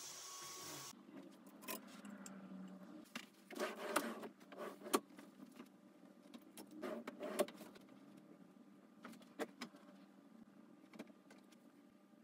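Cordless stick vacuum cleaner running, cutting off abruptly about a second in. After that come faint scattered clicks and rustles of clothes and clothes hangers being handled on a wardrobe rail.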